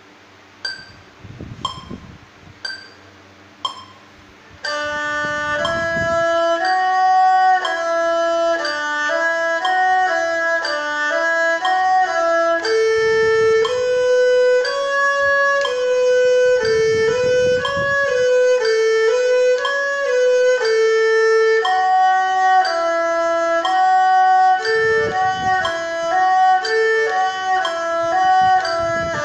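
Four clicks about a second apart, then an erhu bowed in a steady étude of stepwise scale notes, many played in slurred two-note pairs.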